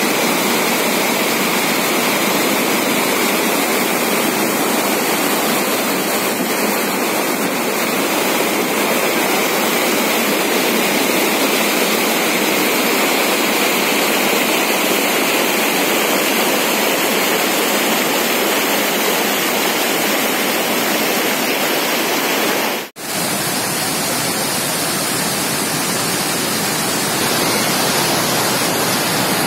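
Floodwater rushing steadily as an overflowing lake spills over its weir and across a causeway road. The sound cuts out for a split second about three quarters of the way through, then the rush resumes.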